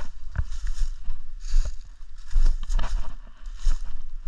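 Footsteps crunching through dry fallen leaves at a brisk walk, one or two crunches a second, over a low rumble.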